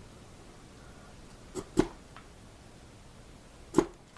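Wood chisel cutting into the hard maple heel of a mandolin neck: sharp knocks, a quick pair about a second and a half in and one more near the end.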